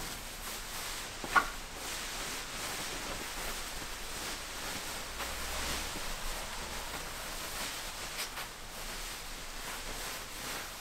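German wirehaired pointer puppies and their mother play-wrestling on a fabric beanbag: rustling and scuffling, with one short, sharp, high yelp about a second and a half in.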